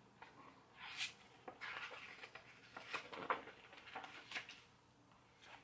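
Hardcover picture book being handled and a page turned: a few faint paper rustles and soft taps.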